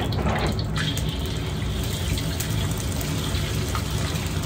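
Shredded beef tipped into hot oil in a wok and sizzling, stirred with chopsticks as it is passed through the oil, with a burst of sizzle as it goes in about half a second in; the gas wok burner runs steadily underneath.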